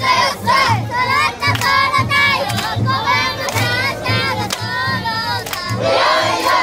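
Crowd of children chanting a Japanese festival song (matsuri-uta) loudly together, many voices half-sung and half-shouted, over a steady low beat about twice a second, with sharp claps cutting through.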